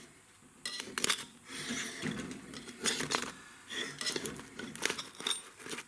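Knife scraping and clicking against the inside of a light-alloy kazan as baked samsa are pried loose from its metal walls, in scattered irregular strokes.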